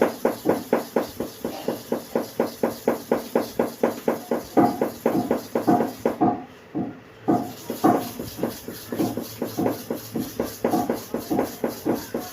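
A hair-clipper blade being rubbed back and forth by hand on a hard sharpening stone, quick even strokes about four a second, with a brief pause a little past halfway. The blade is being ground flat to bring its worn surface down level.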